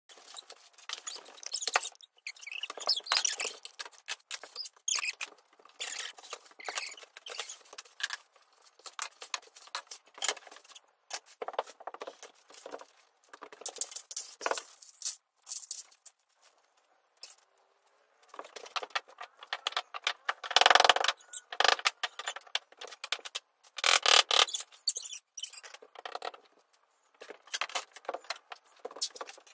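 Wooden flat-pack cat-furniture panels and tubes knocking and clattering irregularly as they are picked up and set down on a parquet floor, with a louder thud a little past the middle.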